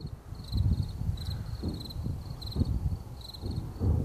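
Crickets chirping steadily, a few short chirps a second, with the low, rumbling booms of distant aerial fireworks swelling up underneath about four times.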